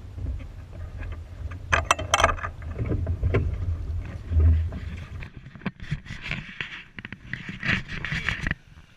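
Wind rumbling on the microphone and water rushing and splashing along a sailing yacht's hull under way, with irregular louder splashes. About five seconds in the sound changes abruptly to a hissier splashing, which cuts off sharply near the end.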